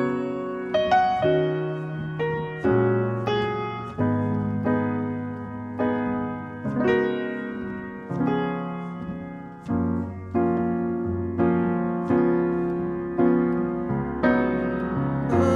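Piano playing a slow chord progression, each chord struck and left to ring out, as the song's intro.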